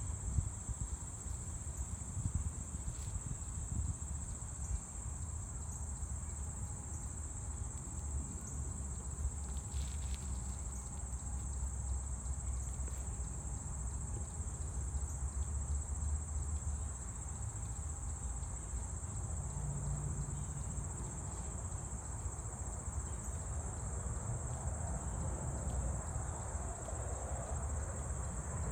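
Steady, high-pitched chorus of insects, unbroken throughout, over a low rumble.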